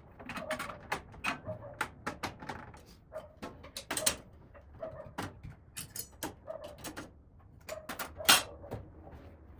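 Irregular metallic clinks and clicks of steel hardware being handled and fitted: triangle corner brackets, bolts and nuts going into the corners of a steel tool cart.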